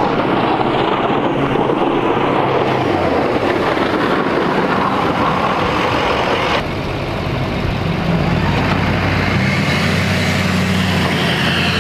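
Pickup plow trucks running while pushing snow with their blades, a steady mix of engine and rushing noise. About six and a half seconds in the sound changes abruptly, and a steady low engine hum comes forward.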